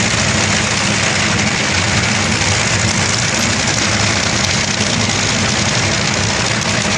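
Top fuel dragster's supercharged nitromethane V8 running, a loud, steady, crackling rumble heard from the grandstand.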